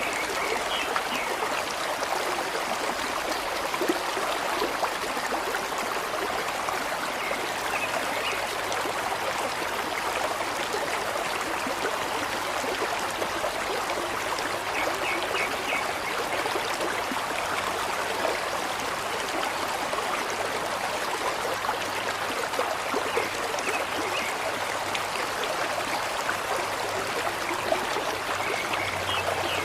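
Steady flowing stream, water trickling and babbling without a break, with a few faint short high chirps now and then.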